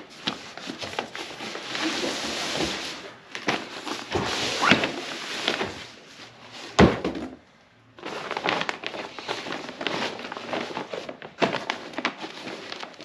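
Cardboard packaging being handled and pulled apart, rustling and scraping, as a folding camping cot in its fabric carry bag is lifted out of the box, with scattered clicks and a sharp thunk about seven seconds in.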